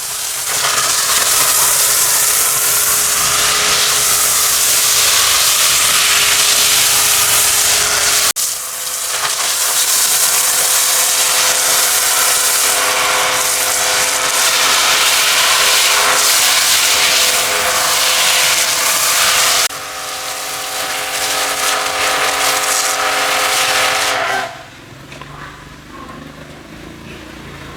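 High-pressure washer spraying: a loud, steady hiss of the water jet over a steady pump whine. It cuts off about three-quarters of the way through, leaving a much quieter background.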